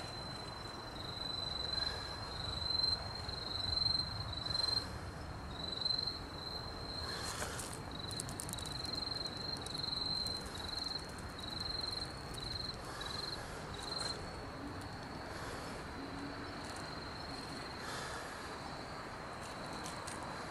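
A cricket chirping in a steady rhythm, a little under two high chirps a second, which stops about two-thirds of the way through, over faint outdoor hiss with a few brief rustles.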